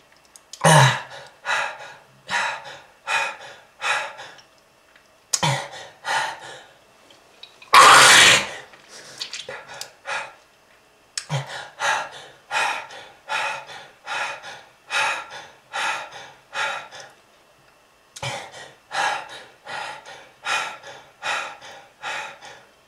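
A person coughing hard in repeated fits, each a run of several quick coughs with short pauses between the runs, and one longer, louder hacking burst about eight seconds in. The cough is presented as a smoker's cough from lung disease.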